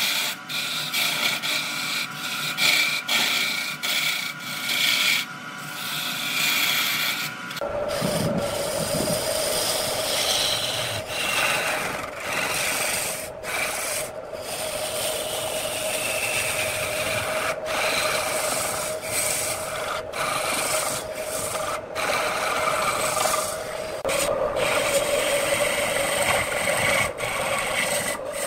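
A turning tool cutting into a spinning wooden blank on a lathe: a continuous scraping hiss of shavings peeling off, broken by brief pauses. About a quarter of the way in the sound shifts and a steady hum joins it.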